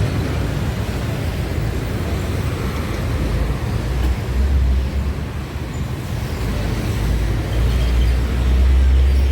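Road traffic passing on a busy highway, with a deep engine rumble from a heavy vehicle that grows louder near the end.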